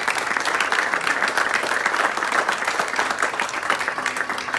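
Audience applauding: dense, steady clapping from many hands, tapering off near the end.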